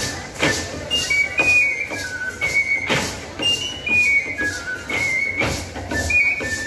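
Folk dance music: a high-pitched flute plays a melody of short notes stepping up and down, over regular percussive beats.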